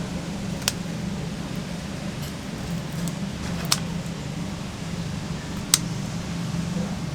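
Steady low mechanical hum, like a fan or motor running, with three sharp clicks about a second in, near the middle and past the middle.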